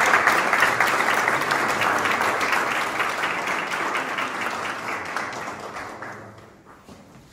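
Audience applauding, the clapping of many hands dying away over the last two seconds.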